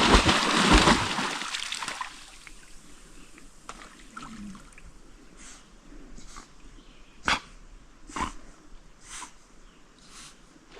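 A dog splashing in lake water: a loud rush of splashing for about the first two seconds, then quieter water with a few short, sharp splashes near the end.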